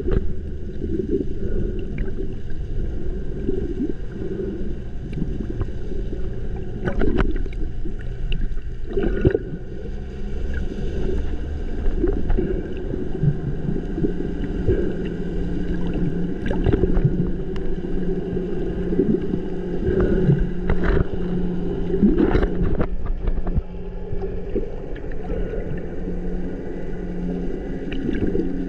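A boat engine heard underwater: a steady, muffled drone made of several even tones, with a lower hum that grows stronger about halfway through and a few sharp clicks scattered through it.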